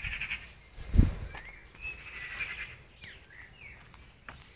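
Birds calling outdoors, whistled notes that glide up and down, with a short bleat at the start and a loud low thump about a second in.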